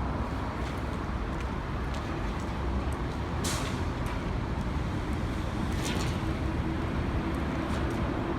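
Steady low rumble of motor traffic, with two short hisses about three and a half and six seconds in.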